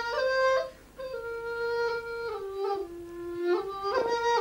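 Background music: a flute playing a slow melody of held notes that step down and back up, with a short break about a second in.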